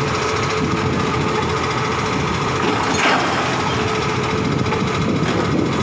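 Side-loader garbage truck's engine and hydraulics running steadily with a whine as its automated arm lifts a wheelie recycling bin and tips it over the hopper. About three seconds in there is a brief clatter as the bin's contents fall in.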